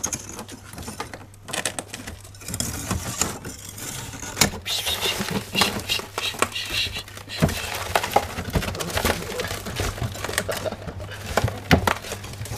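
A ferret scrabbling and digging in loose frost in a plastic freezer drawer: irregular scratching and crunching, with many sharp clicks and knocks.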